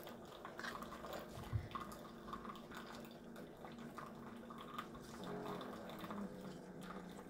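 Faint background noise of a voice-over recording: a steady low hum with a few light clicks and a soft knock about a second and a half in.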